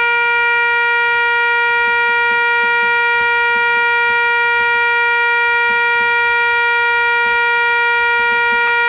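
Ruffatti pipe organ's trumpet reed pipes sounding one bright, steady held note.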